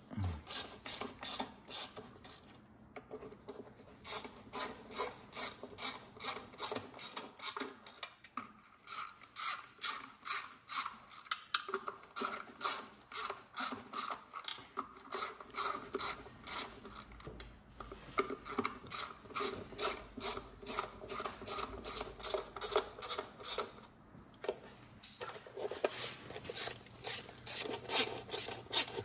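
Hand ratchet clicking, a few clicks a second, as it turns transmission oil pan bolts in by hand, with short pauses between spells as it moves from bolt to bolt.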